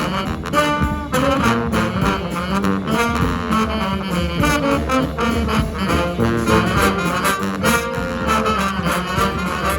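Street brass band playing live: horns carrying the tune over a sousaphone and tuba bass line, with a steady beat throughout.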